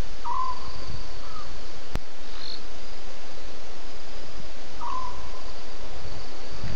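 Night chorus of crickets over a steady hiss, with a short mid-pitched call from a small animal just after the start and again about five seconds in. A single click about two seconds in.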